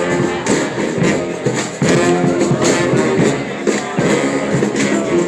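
Street brass band playing live: horns holding sustained notes over a steady percussion beat of about two strokes a second.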